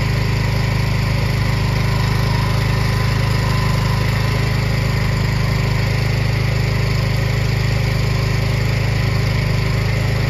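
An engine running steadily at idle, with no change in speed.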